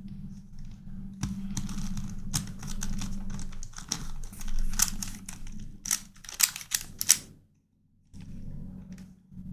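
Plastic clicking and clacking of a non-magnetic Corner Helicopter twisty puzzle as its corners are turned by hand during a solve. The turns come in quick runs with louder snaps toward the end, then a short pause before the turning resumes.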